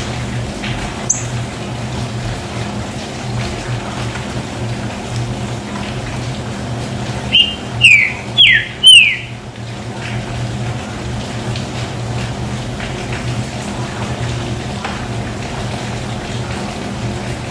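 A green-winged saltator (trinca-ferro) sings one short, loud phrase of four descending whistled notes about halfway through, over a steady low background hum.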